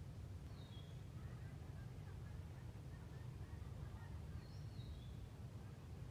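Quiet outdoor ambience: a steady low rumble with faint bird chirps, two short high calls about a second in and again around four and a half seconds.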